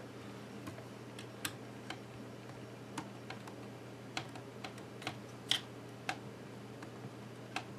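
Light plastic clicks and taps, about a dozen at irregular spacing, as parts of an iBook G4 laptop are worked free by hand during disassembly, over a steady low hum.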